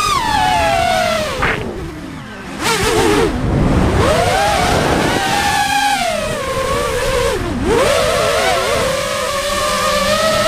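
A drone's electric motors whining, the pitch swinging up and down with the throttle. The pitch falls away about two seconds in and then climbs again, with a burst of rushing air noise around three to four seconds. After another sharp dip it settles to a steadier whine near the end.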